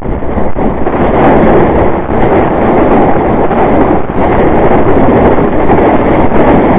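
Loud, steady rushing and scraping of a johnboat hull sliding over a snowy, slushy road as it is towed, with wind buffeting the microphone.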